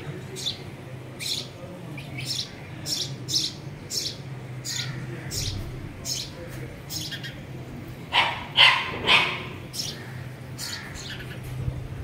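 Small birds at a nest chirping repeatedly in short, high notes over a steady low hum. About eight seconds in come three louder, lower calls in quick succession.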